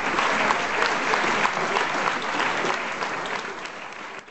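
Audience applauding, dense clapping that fades away over the last second.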